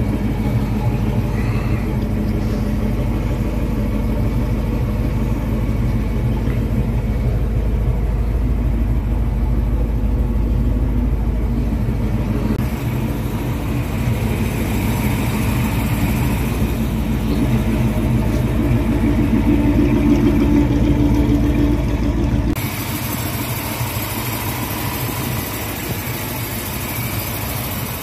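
1957 Chevrolet 4400 truck engine running steadily at idle. About four-fifths of the way through, the low rumble drops away and a steady hiss rises.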